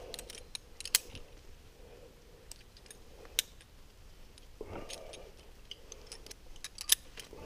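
Metal climbing hardware, carabiners and rappel gear, clinking and clicking now and then as it is handled and clipped. The sharpest clinks come about one second, three and a half seconds and seven seconds in.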